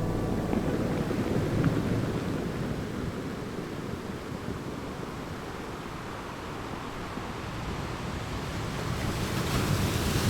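Ocean surf washing onto the shore, a steady rush of waves that eases slightly midway and swells again near the end.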